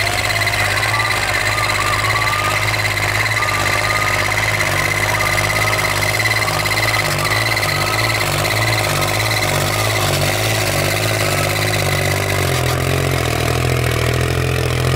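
New Holland 3630 tractor's diesel engine running hard under load as it drags a harrow through loose soil, a loud steady throb with a steady high whine above it. The engine pitch rises slightly near the end.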